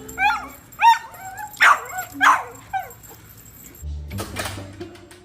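A dog giving about five high-pitched yips and barks in quick succession, the pitch of each call bending up and down. Background music comes in near the end.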